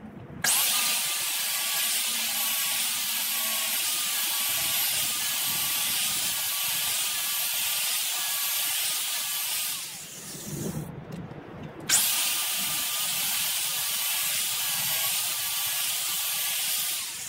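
Handheld power tool working the steel of an old Milwaukee reciprocating-saw blade, a high hiss over a motor whine that wavers in pitch under load. It runs in two long passes: starting about half a second in, stopping for a couple of seconds around the middle, then starting again and stopping near the end.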